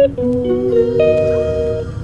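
Background music: a guitar picking held notes over a low hum, with no singing.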